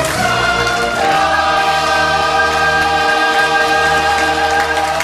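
Musical-theatre cast singing together in chorus, moving to a long held final chord about a second in.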